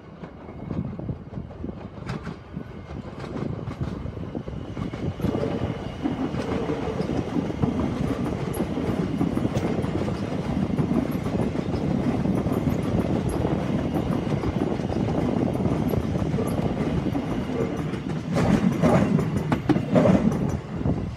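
Thameslink Class 700 electric multiple unit passing at speed: a steady rumble of wheels on rail that builds over the first few seconds. Near the end it turns louder, with clattering clicks.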